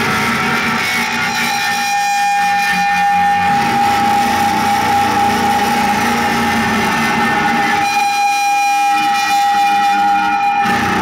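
Live band with trombone and two drum kits playing loud, dense, noisy music. A single high note is held steady through most of it over a continuous wash of sound.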